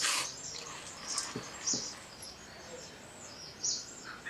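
Roasted puffed Bengal gram poured from a bowl into a metal kadai of melted jaggery: a brief dry rattle at the start, the loudest sound. After it, small birds chirp now and then, and there are two soft knocks.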